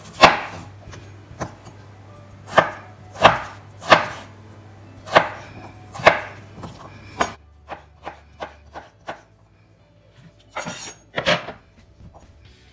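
Chef's knife cutting raw potatoes into sticks for fries on a wooden cutting board, the blade knocking on the board with each stroke. The cuts come unevenly, about one a second at first, then softer and quicker, with a louder pair of cuts near the end.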